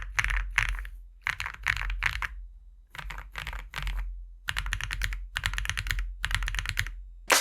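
Typing on a Neson Design 700E custom mechanical keyboard: pre-lubed KFA Pink Robin linear switches under 1.7 mm PBT keycaps, on an aluminium plate and thin 1.2 mm flex-cut PCB, with the case filled with foam. Keystrokes come in short bursts separated by brief pauses, with a longer, faster run of keystrokes in the second half.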